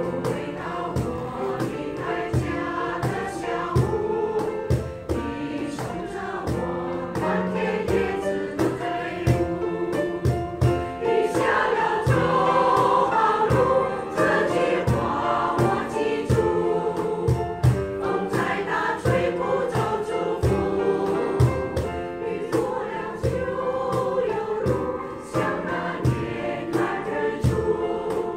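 Mixed choir of women and men singing with grand piano accompaniment and a steady beat played on a cajón. The singing swells louder about twelve seconds in.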